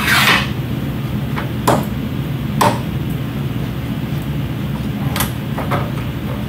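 Evacuation stair chair's handles being folded and latched closed: about six short metal clicks and clacks, spread unevenly, over a steady low hum.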